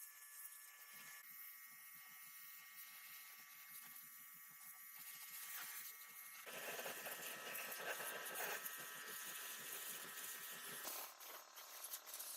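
A small electric tool buzzing, with a fast, even train of scraping strokes that grows louder just past halfway and drops back shortly before the end.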